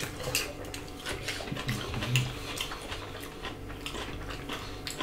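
Close-up eating sounds of two people eating a meal with their hands: chewing, lip smacks and small clicks, one of them biting into a raw green chili. A short low hum comes in near the middle.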